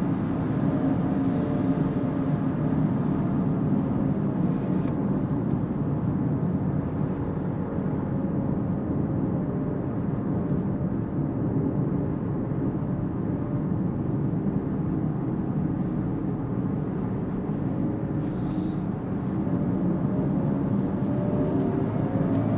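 Steady road and wind noise inside the cabin of a Kia EV6 AWD GT-Line electric car driving at speed, a low even rumble of tyres and air with no engine sound.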